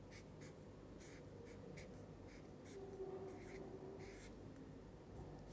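Felt-tip marker writing on paper: a string of short, faint scratching strokes as the tip moves across the sheet.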